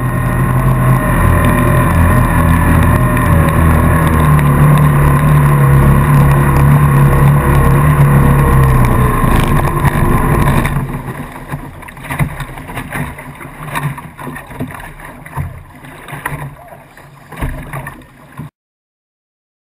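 Small racing boat's engine running loud and close, then cutting off abruptly about ten seconds in. Quieter scattered knocks follow.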